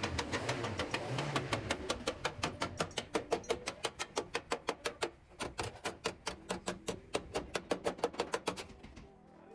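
Background music with a fast, even ticking beat of about five clicks a second over a faint tone; it fades out near the end.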